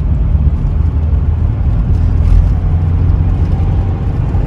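Steady low rumble of a car engine and road noise in traffic, heard from inside a vehicle's cabin.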